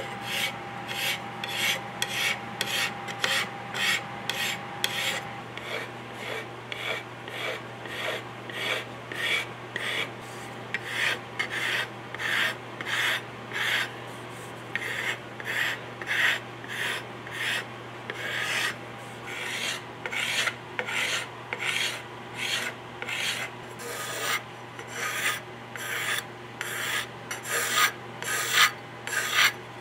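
Hand-held steel wood scraper shaving a wooden gunstock in short, repeated strokes, about two scrapes a second with a few brief pauses.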